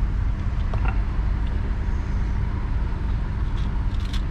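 Volkswagen car's engine idling, heard from inside the cabin: a steady low rumble with a steady hum. A few faint light clicks come near the end.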